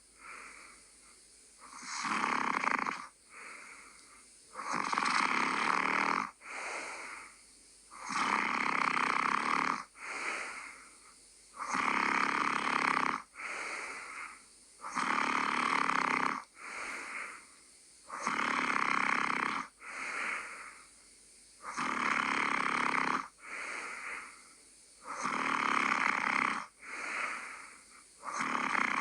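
A person snoring in sleep, a loud snore about every three seconds, each followed by a shorter, quieter one, in a steady rhythm.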